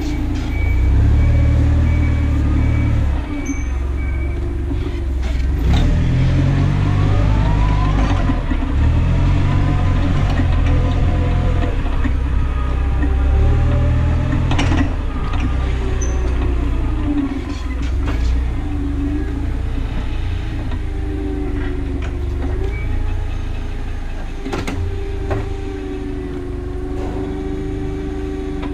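Semi-truck diesel engine running under load while driving, its pitch rising and falling through gear changes, with a heavy low rumble that comes and goes every few seconds.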